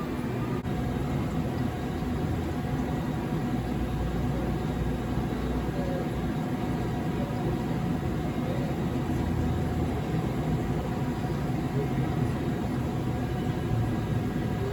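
Hankook NSD CNC EDM drill running as it drills a 2 mm electrode into a stainless steel tube: a steady machine hum with several steady tones that hold throughout.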